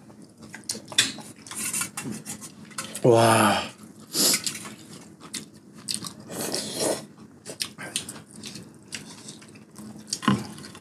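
Metal spoons and chopsticks clinking and scraping against stainless steel bowls in a run of small clicks, with short slurps of spicy jjamppong broth from a bowl lifted to the mouth.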